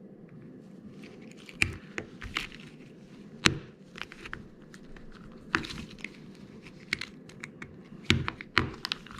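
Irregular small plastic clicks and taps as a 2017 Ford Explorer key fob's battery module is handled and pressed back into its plastic case until it snaps in.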